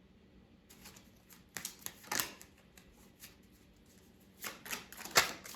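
Tarot cards being handled: a series of short papery swishes and slaps as the deck is shuffled and cards are laid out, the loudest slap near the end.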